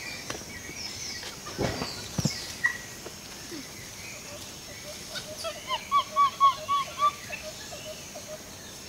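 A bird calling: a quick run of about five short, arched notes a little past midway, over a faster train of softer notes. A couple of soft knocks come about two seconds in.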